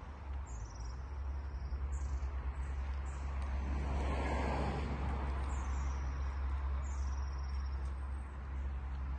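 A car engine idling steadily with a low hum, while a bird sings short, high, falling chirps about five times.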